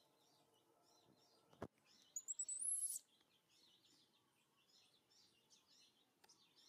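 A baby monkey gives one shrill, high-pitched call about two seconds in, rising and then held for just under a second, the loudest sound here. A single sharp knock comes just before it, and faint birds chirp in the background.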